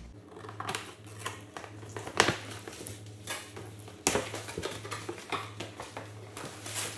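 Cardboard box being handled and its flaps pulled open by hand: scraping, rustling and a string of sharp knocks, the loudest about two seconds in and another about four seconds in.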